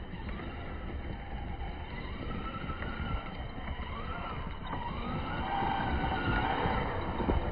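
Arrma Big Rock 6S RC monster truck's 6S brushless motor whining, its pitch rising and falling several times as the throttle is worked during drifting on sand. The whine is loudest for a couple of seconds near the end, over a steady low rush of noise.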